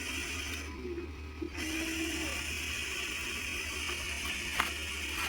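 Small electric motor and gearbox of a radio-controlled construction model whirring steadily. The whirring sets in about a second and a half in, and there is a single sharp click near the end.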